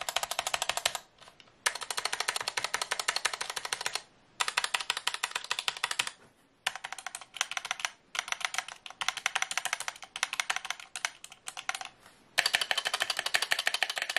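Stock stabilized keys of a Gamakay K61 mechanical keyboard with Gateron Yellow linear switches (spacebar, shifts, enter, backspace) being hammered rapidly, clacking in runs of a few seconds with short pauses. The loudest run comes near the end, on the spacebar. The stabilizers rattle because they are not lubed, their legs are unclipped and they sit loosely in the plate.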